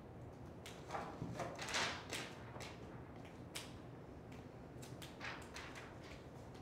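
Faint, scattered rustling and light taps over quiet room tone, from paper and pencils being handled at desks.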